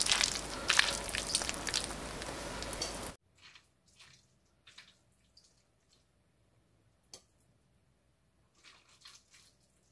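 Wet boiled tagliatelle tipped from a stainless steel colander into a glass bowl, with a dense dripping and squelching noise that cuts off abruptly about three seconds in. After that it is near quiet, with a few faint clicks of a fork against the glass bowl near the end.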